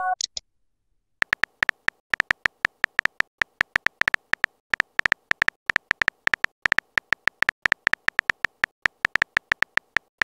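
Texting Story app's keyboard typing sound effect: a rapid, uneven run of short, high, clicky beeps, several a second, starting about a second in, as a message is typed letter by letter.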